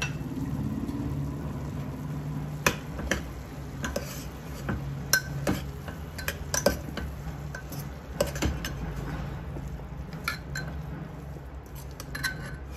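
A ladle stirring vegetables and spices in an open pressure cooker, scraping and knocking against the pot in irregular taps, over a steady low hum.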